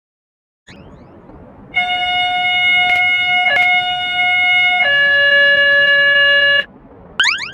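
Electronic warning siren sounding a steady held tone that drops to a lower held tone after about three seconds and then cuts off abruptly, with two sharp clicks during the first tone. Near the end a rising siren sweep starts.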